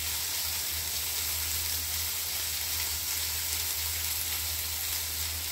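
Vegetable stir-fry sizzling steadily in hot oil in a frying pan, with a steady low hum underneath.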